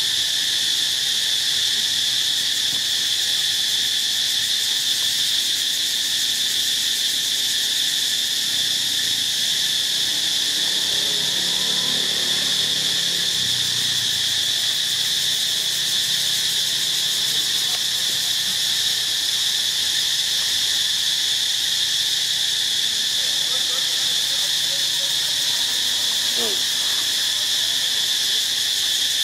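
A steady, shrill chorus of insects buzzing without a break.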